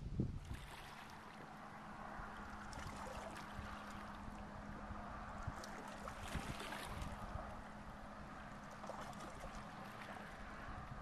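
Waterside ambience: wind buffeting the microphone and gentle water movement, under a faint steady drone.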